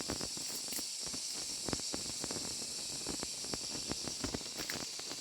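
A steady high-pitched insect chorus, with irregular clicks, knocks and rustling from close handling or footsteps over it.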